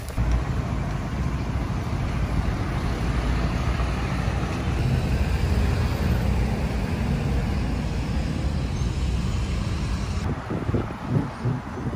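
Steady city traffic noise: a dense, continuous rush with a heavy low rumble.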